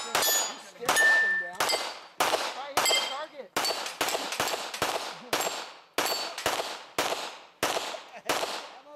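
A pistol-caliber carbine firing a long string of shots, about two a second, at steel targets. Struck steel plates ring after many of the shots.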